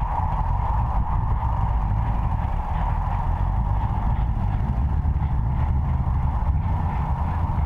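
ALCO S2 switcher locomotive's six-cylinder turbocharged diesel engine running steadily as the locomotive approaches, a low rumble with a higher steady whine above it.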